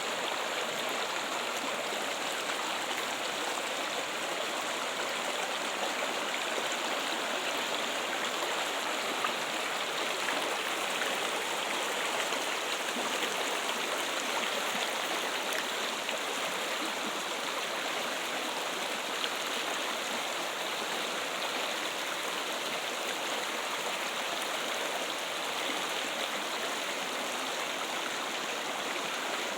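Water trickling and splashing steadily, like a small stream or fountain.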